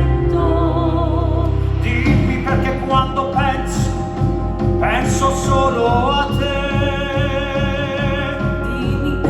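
Live stage-musical performance: a singer holds long notes with vibrato over orchestral accompaniment. About two seconds in, the held chords give way to a steady pulsing accompaniment.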